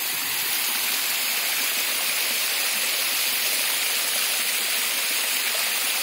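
Steady rush of water at a small stone check dam (anicut): an even hiss that does not break or change.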